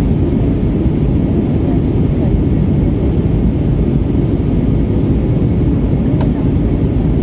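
Steady cabin noise of a jet airliner in flight, heaviest in the low end, heard from a window seat. A single short click about six seconds in.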